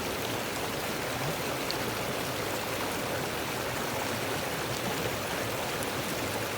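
Small glacial-meltwater mountain creek running, a steady rush of flowing water.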